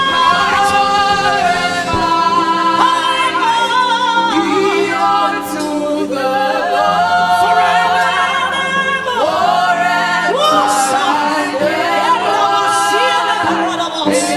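Gospel worship singing: a woman's voice sung in sliding, wavering melodic runs over steady sustained chords.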